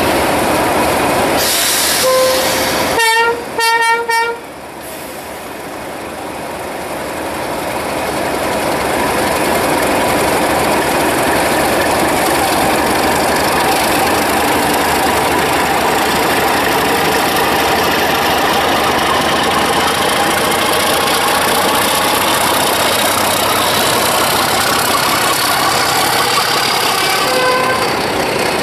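Main-line diesel locomotive horn: a short toot, then a quick run of several horn blasts. The diesel engines then build up over several seconds into loud steady running as the train gets under way along the platform, with another brief toot near the end.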